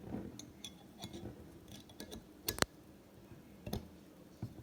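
Metal bottle opener clicking and scraping against the cap of a glass Coca-Cola bottle while levering it off, with a few sharp clicks; the loudest comes a little past halfway.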